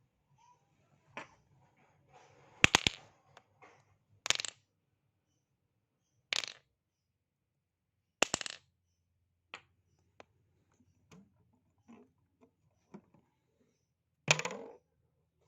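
Objects dropped one after another onto a hard surface: a series of separate sharp impacts, each with a short rattle or bounce. There are about five louder drops, the loudest near the start, with smaller light ticks between them.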